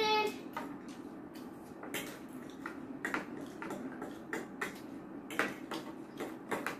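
Metal forks clinking and scraping against plates in quick, irregular clicks as noodles are eaten fast.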